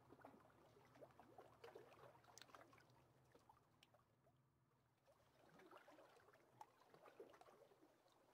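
Near silence: faint background tone with a low hum and scattered small ticks and crackles.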